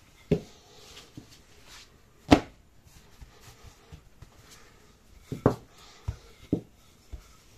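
A wooden rolling pin rolling yeast dough out on a silicone mat, with hands pressing the dough. Several sharp knocks as the pin bumps or is set down on the worktop, the loudest about two seconds in and a quick cluster near the end.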